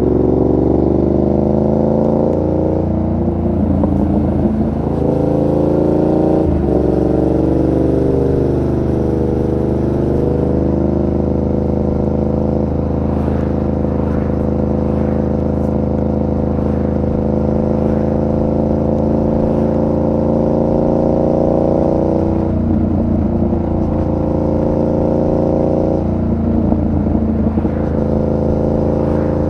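Yamaha MT-07's 689 cc crossplane parallel-twin engine running under way. Its note changes with throttle and gearing a few times, with a sudden jump in pitch about six seconds in, and holds steady in between.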